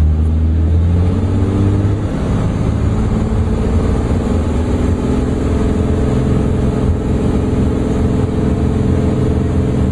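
Turbocharged six-cylinder Continental TSIO-550 engine of a Cessna 400 Corvallis, heard from inside the cockpit. It rises in pitch over the first two or three seconds as power is brought up for the takeoff roll, then runs steadily at high power.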